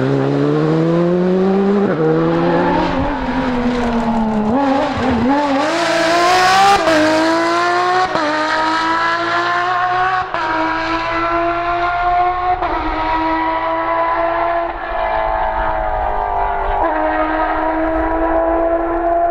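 Rally car engine at full throttle, accelerating hard through the gears, its pitch dropping at each upshift roughly every two seconds.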